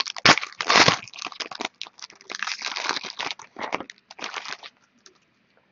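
Foil wrapper of a Strata football card pack being torn open and crinkled in the hands: a quick run of crinkles and rips that stops near the end.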